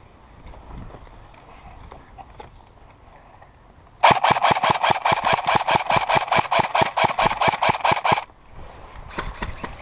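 Airsoft gun firing a full-auto burst: a rapid, even string of shots at about seven a second for about four seconds. A second burst starts near the end.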